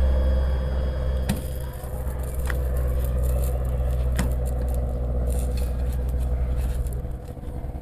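Light aircraft passing overhead, its engine a steady low drone that fades near the end, with a few faint clicks.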